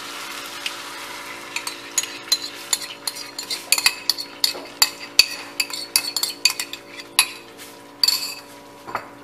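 A utensil scraping and clicking against a bowl in quick, irregular strokes as tomato sauce is scraped out of it into a frying pan, starting about a second and a half in, with the pan sizzling faintly underneath.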